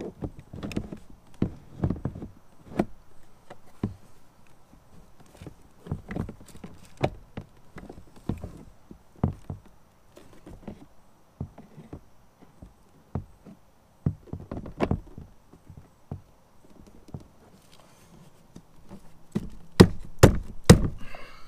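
Irregular knocks, thuds and clunks of a BRP speaker being pushed and worked into its mounting bracket inside a Sea-Doo jet ski's plastic body, with a few louder sharp knocks near the end as it seats.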